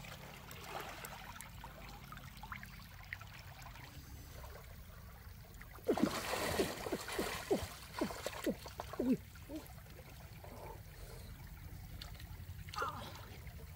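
Hands splashing and churning shallow stream water, a quick series of splashes from about six to nine seconds in and one more near the end, over the low steady trickle of the stream.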